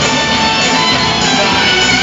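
Electric guitar solo played loud through a PA system.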